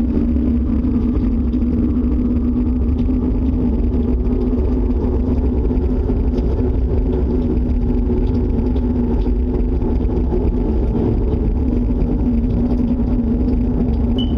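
A loud, steady low roar with a constant droning hum running through it, unchanging throughout: the unexplained loud noise being recorded.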